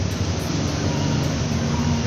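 Steady background noise with a low droning hum that comes in about half a second in.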